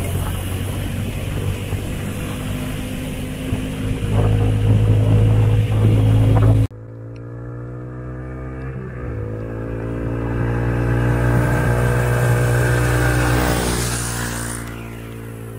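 A mini buggy's small motorcycle engine running steadily, getting louder a few seconds in, then cutting off abruptly. The buggy's engine then drives past, its note swelling to a peak and fading away near the end.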